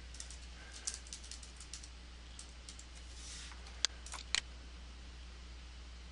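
Computer keyboard typing: quick runs of keystrokes for the first couple of seconds, then two sharper clicks about four seconds in from a mouse button. Under it all runs a steady low hum.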